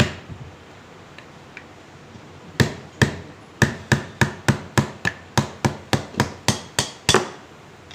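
Hammer blows on a BMW G12 front air-suspension shock absorber being taken apart. About 2.5 seconds in come two separate strikes, then an even run of about a dozen at some three a second.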